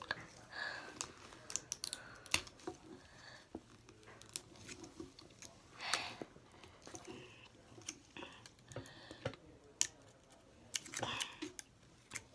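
Small plastic Toy Mini Brands capsule being handled and worked open by hand: irregular light plastic clicks and taps, with short crinkly rustles about halfway through and near the end.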